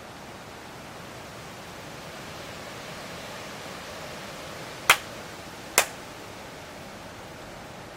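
Strong wind blowing through fresh green leaves and branches, a steady rustling that swells a little midway. Just before the middle, two sharp cracks about a second apart stand out as the loudest sounds.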